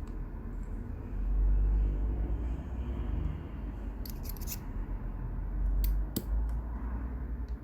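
Handling noise from small parts being worked by hand, with a few sharp clicks or snips about four seconds in and again around six seconds.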